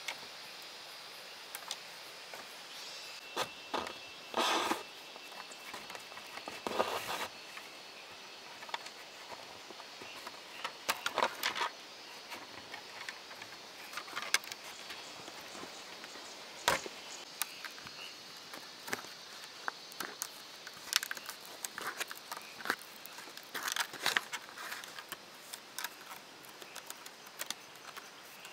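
Irregular clicks, taps and knocks with a few short rustles, like hands handling objects, over a steady faint background hiss.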